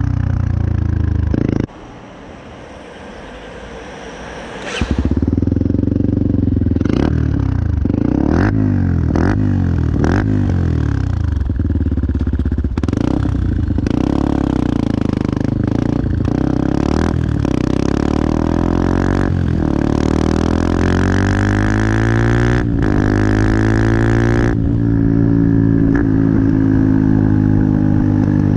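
Benelli TNT 125's single-cylinder four-stroke engine running and revving, its pitch rising and falling again and again, with many brief sharp breaks in the sound. It drops quieter about two seconds in and comes back up strongly near five seconds.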